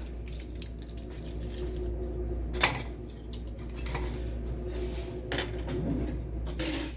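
Dishes and cutlery clinking and knocking as they are handled and put away, a few sharp clinks spread through, over a steady low hum.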